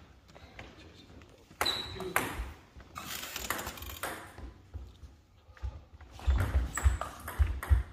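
Table tennis ball clicking off bats and the table. A few scattered ticks come first, then a quick run of sharp ticks near the end as a rally gets going.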